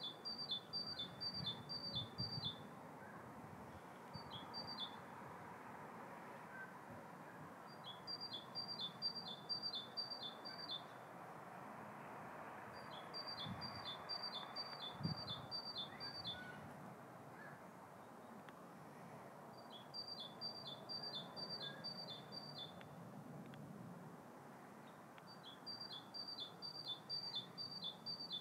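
A small songbird singing the same phrase over and over: a quick run of six or seven even, high notes, repeated every five or so seconds, over a faint steady background hiss.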